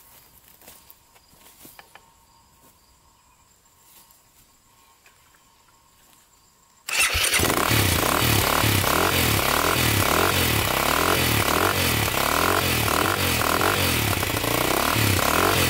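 KTM EXC enduro dirt bike's single-cylinder four-stroke engine starting cold on the choke: near silence for about seven seconds, then it fires suddenly and keeps running loudly and steadily.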